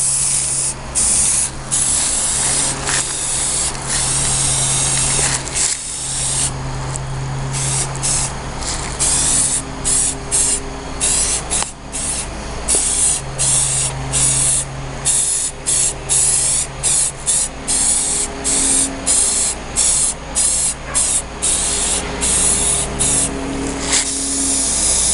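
Spray paint hissing from the nozzle onto the air rifle's parts: long steady passes at first, then, from about a third of the way in, many short bursts in quick succession.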